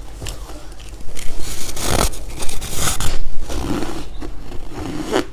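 Hard freezer ice coated in buckwheat being bitten off and crunched between the teeth. Loud crunching starts about a second in, then eases into softer chewing near the end.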